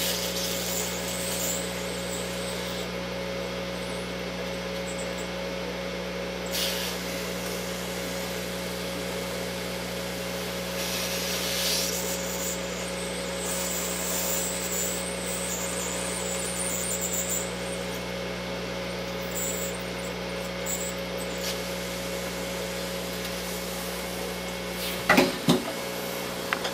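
Hot air rework station blowing steadily: an even rush of air over a constant hum, as solder paste is reflowed. Two short knocks near the end.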